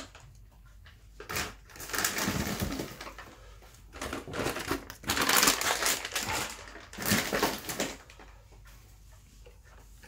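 Rustling handling noise in four bursts of about a second each, with quieter gaps between them.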